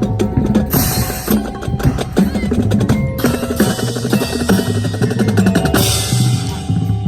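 Marching band music driven by the percussion section: rapid snare and bass drum strokes over sustained low notes, with loud crashes about a second in, just past three seconds and near six seconds.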